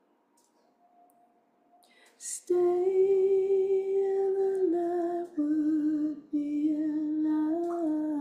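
A woman humming a slow tune in long held notes, starting about two and a half seconds in right after a quick intake of breath.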